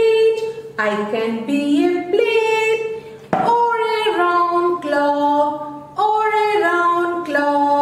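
A woman singing a melody on her own, with no instruments, in held notes that step up and down.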